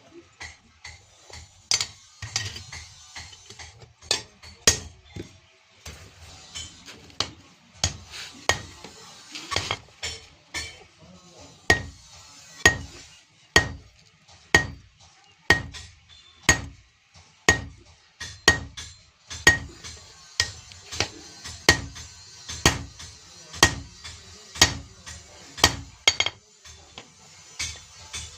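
Blacksmith's hand hammer striking iron on an anvil while forging a katari blade. The blows are irregular at first, then settle into a steady beat of about one a second, each with a short metallic ring.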